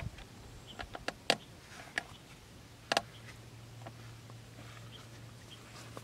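A few sharp clicks and taps of hands handling a plastic-bottle bird trap's paper card and stick trigger, the loudest about three seconds in. A faint steady low hum runs beneath from about halfway.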